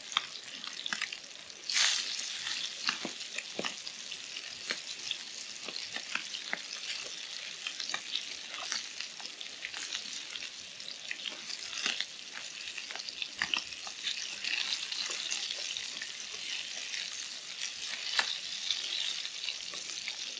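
Fish pieces frying in hot oil in a Trangia 27 frying pan: a steady sizzle with constant crackling and spitting as they are turned with tongs, and a sudden louder burst of sizzle about two seconds in.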